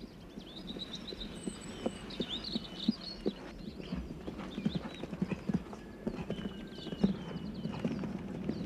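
Hoofbeats of a ridden horse on grass turf as it goes over show jumps, an irregular run of dull thuds with one louder thud about seven seconds in. High chirps sound over it in the first few seconds and again near the end.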